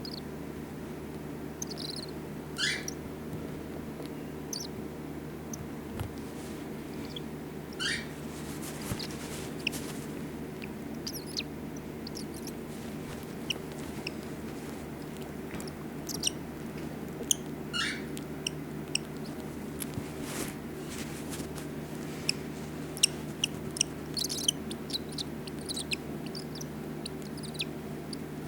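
A six-day-old baby bird giving short, high-pitched begging calls for food, a few seconds apart, with many faint quick clicks in the second half, over a steady low hum.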